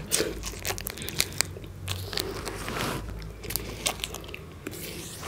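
A person biting and chewing at a wrapped chocolate bar held in the mouth without hands, teeth working on the bar and its plastic wrapper: irregular crunches and crackles.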